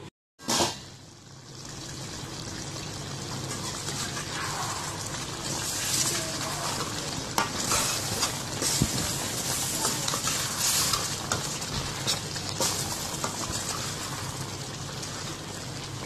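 A thick chicken curry bubbles and sizzles in a steel kadai while a spatula stirs through it, with scattered scrapes and clicks of the spatula against the pan. A brief loud clatter comes right at the start.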